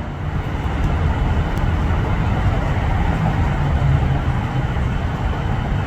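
Steady low engine rumble with a hum, from passing motor traffic, with no shot or impact in it.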